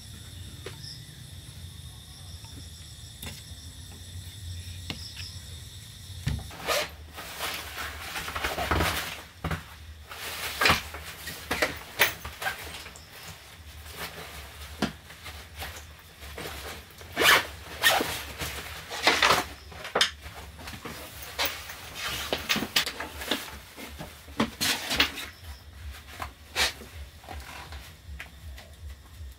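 Night insects chirring steadily for the first few seconds. Then, after a cut, a run of irregular rustles and swishes from clothing, a jacket and a bag being handled in a small wooden room, some of them like a zipper.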